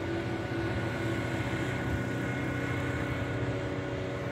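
Motorboat engine running at a steady drone, several steady tones over a low rumble, with wind and riding noise.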